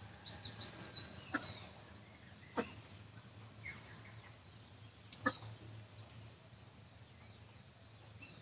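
Quiet outdoor background: faint bird chirps in the first second over a steady high insect buzz, with a few soft clicks spaced a second or more apart.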